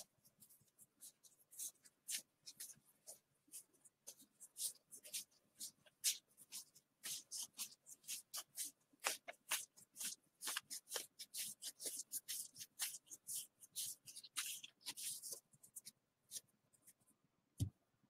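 Stack of baseball trading cards flipped through by hand, a quick run of papery flicks, several a second, which thins out near the end and is followed by a single low thump as the stack goes down on the table.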